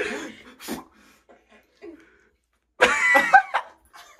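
People laughing and exclaiming in short bursts, with the loudest outburst about three seconds in.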